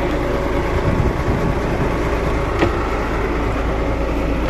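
Fishing trawler's engine running steadily, a constant low hum under an even rush of wind and sea, with a single knock about two and a half seconds in.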